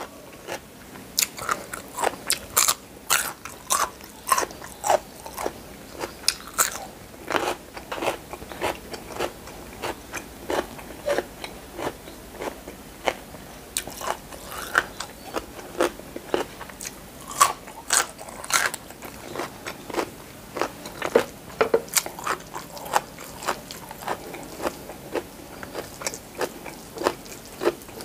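Crisp crunching bites and chewing of raw fresh vegetables and green mango, a string of sharp, irregular crunches.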